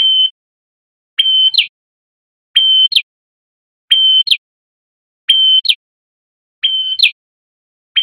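Male red-headed prenjak singing a loud, repeated call. Each phrase is a short held note that ends in a quick sweeping note, and it repeats about every 1.3 seconds, about six times.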